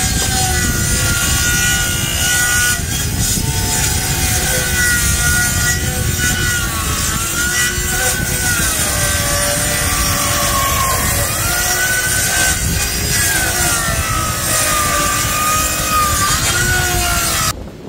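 Reciprocating saw (Sawzall) cutting through hardwood, its motor pitch wavering up and down as the blade loads and frees in the cut. It stops abruptly near the end.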